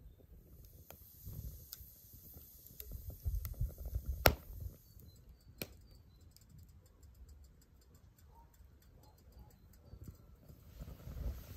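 Wood fire crackling, with scattered sharp pops, one much louder about four seconds in, and a run of fine ticks later on, over a low fluctuating rumble.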